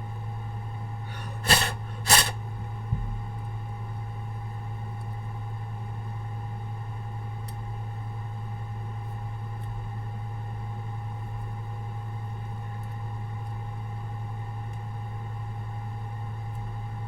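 Two short puffs of air about half a second apart, blown to clear debris out of a phone, followed by a small click, over a steady electrical hum.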